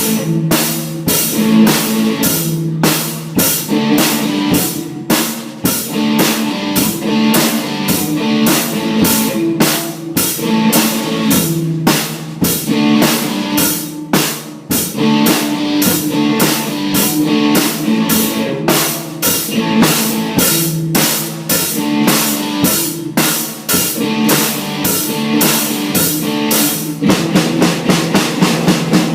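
Rock music on guitar and drum kit: a repeating guitar riff over a steady drum beat. Near the end the drumming turns to quick, dense hits.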